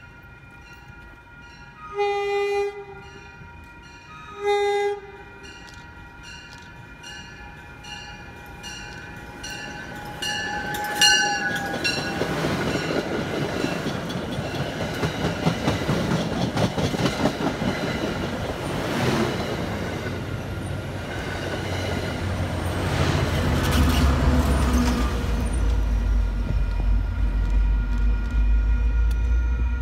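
A train horn sounds two short blasts about two and four seconds in, over the steady, evenly repeating ringing of a crossing bell. The train's wheel and rail noise then builds up loud from about ten seconds as it passes close by, with a deep engine rumble coming in strongly near the end.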